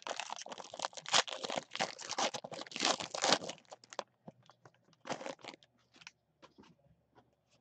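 Foil wrapper of a baseball card pack being torn open and crinkled for about the first three and a half seconds, then a few short rustles and clicks as the stack of cards inside is handled.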